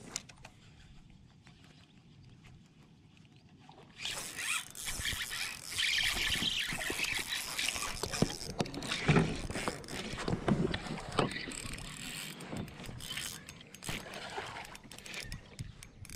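A casting reel is cranked hard and the line rasps as a hooked bass is fought to the boat, starting abruptly about four seconds in. Water splashes near the end as the fish comes to the surface.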